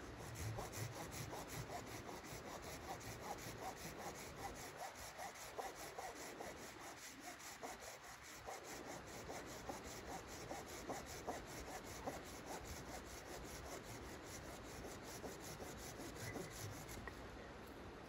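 Hand saw cutting through a wooden branch with quick, even back-and-forth strokes. The sawing stops about a second before the end.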